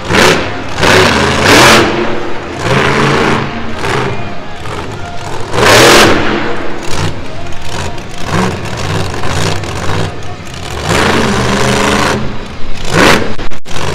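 Monster truck engine revving hard in repeated bursts, the pitch climbing with each rise of the throttle, the loudest about six seconds in.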